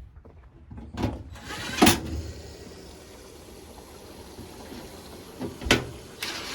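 Washing machine with a freshly replaced motor, drum bearing and seal: two loud clunks about a second apart, then it settles into a steady rushing run, with another sharp knock near the end.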